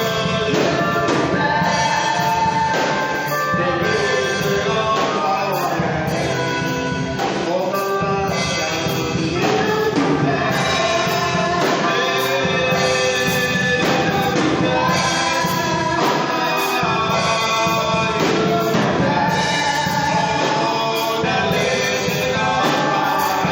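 Gospel music: a group of voices singing together over a steady instrumental accompaniment with a beat.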